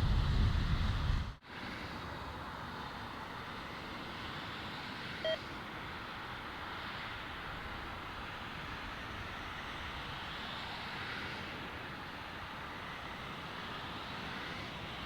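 Wind buffeting the microphone, cut off abruptly about a second and a half in, followed by a steady, even outdoor hiss with one short electronic beep about five seconds in.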